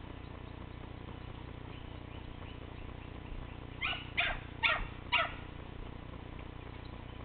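Dog giving four short, high yips in quick succession about four seconds in, while playing, over a steady background hiss.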